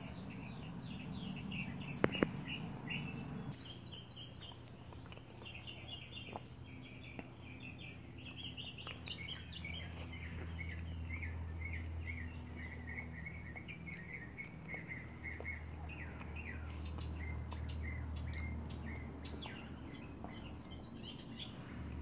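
Small songbirds chirping and singing, with short chirps and quick runs of repeated notes, over a low steady hum. Two sharp clicks come about two seconds in.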